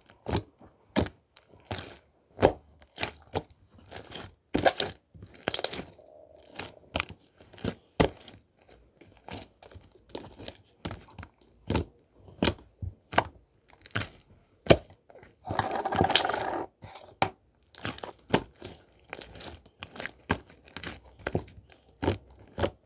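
Irregular sharp crinkles and crunches, one or two a second, with a longer, denser rustle about fifteen seconds in.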